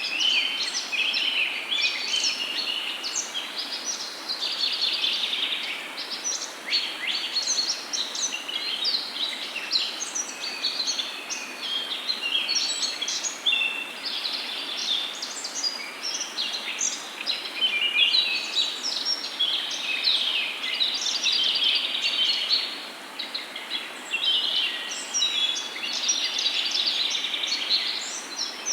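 Many birds chirping and trilling at once in a dense, continuous chorus, over a steady soft hiss.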